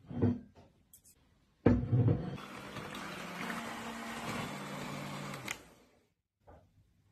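Electric hand mixer (Bosch) switched on with its beaters in a bowl of cream, whipping it: a steady motor whir with beater noise that shifts slightly in pitch for about four seconds, then stops. Just before, a short thump as the bowl is set down.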